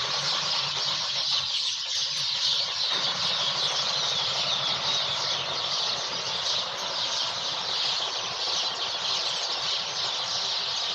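A dense morning chorus of many birds chirping and calling together from a tree, a continuous shrill chatter of overlapping high calls.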